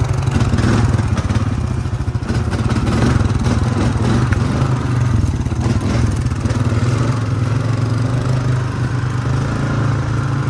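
ATV engine running steadily as the four-wheeler drives along a rough wooded trail, heard from on board, with a few scattered knocks.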